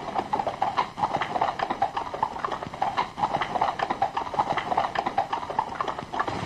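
Rapid, irregular clatter of knocks, several a second.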